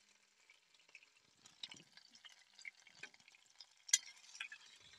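Crushed ginger and garlic crackling faintly in hot oil in a kadhai, stirred with a metal spatula, with one sharp tap of the spatula on the pan about four seconds in.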